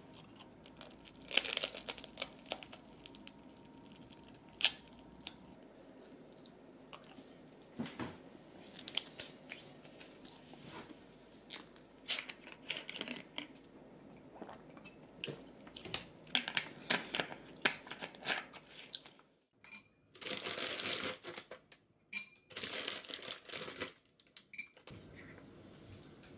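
Crunching and cracking of stale toasted bread gone rock hard, bitten and chewed up close in irregular crackly snaps. Near the end, two longer noisy bursts are broken by sudden silences.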